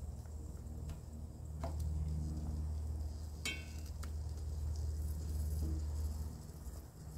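Dried squid frying in a little oil in a stainless steel pan, a faint sizzle, with a few clinks as metal tongs knock the pan while the pieces are turned. One clink about halfway through rings briefly. A steady low hum lies under it all.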